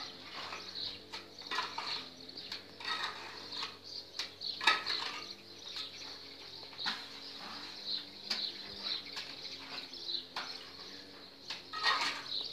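Mason's trowel scraping mortar and knocking concrete blocks into place on an oven dome: a run of short scrapes and taps, the sharpest knock about four and a half seconds in. Birds chirp in the background.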